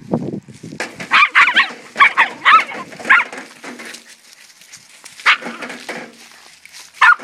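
Dogs yipping and barking in quick high-pitched bursts, several in a row and then a few more near the end, excited over a chipmunk they think is hiding in a downspout.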